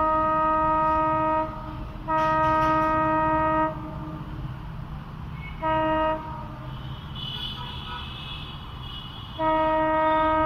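Air horn of an approaching Indian Railways WDG4 diesel locomotive sounding in repeated blasts: a long one ending about a second and a half in, another soon after, a short toot around six seconds, and a long blast starting near the end, over the low rumble of the locomotive.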